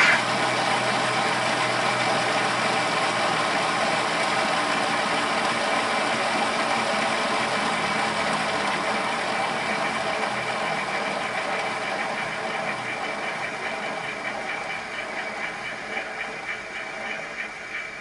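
Digital sound decoder playing recorded GWR 57xx pannier tank steam locomotive sounds through the model's small speaker: a steady hiss of steam that slowly fades, with soft, evenly spaced beats showing through in the second half.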